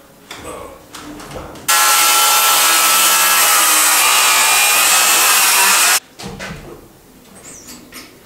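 Power saw cutting through a wooden plate board, running steadily for about four seconds from nearly two seconds in and cutting off abruptly, with quieter irregular sounds before and after. The board is being cut out from below the floor joists to make room for a new support beam.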